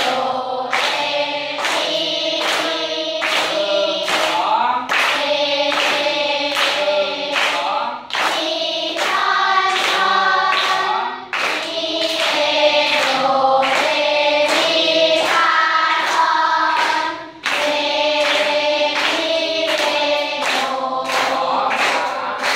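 A class of children singing note names together in unison, reading a melody off the board, while clapping the beat at about two claps a second.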